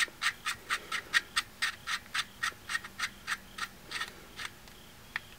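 Knurled metal thread protector being twisted onto a pistol's threaded barrel muzzle by hand: a quick, even run of small scraping clicks, about four a second, that stops about four and a half seconds in, with one last click just after.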